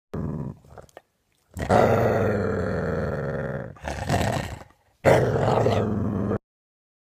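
Dog growling in four rough bursts, the longest about two seconds, each cut off abruptly.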